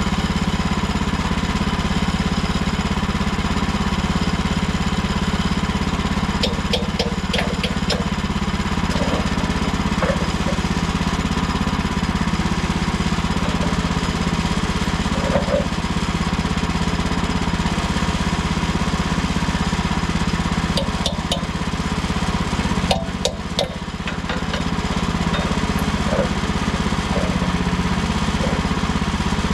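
Small gas engine of a Woodland Mills HM130 Max portable bandsaw mill running steadily, with a few sharp clicks about a quarter of the way in and again around two-thirds of the way through.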